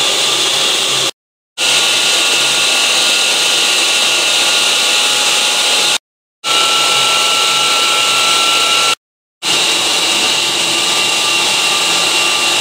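Electric motor of a vertical irrigation pump on a variable-frequency drive, running steadily with a constant whir and a high whine, broken by three brief dead-silent gaps. It is pumping against a closed valve with no flow, slowly building pressure toward its 125 psi set point.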